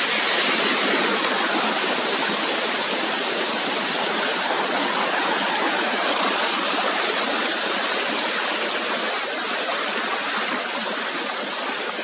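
Mountain waterfall pouring into a rock pool, a steady rush of water heard close up, growing gradually a little quieter toward the end.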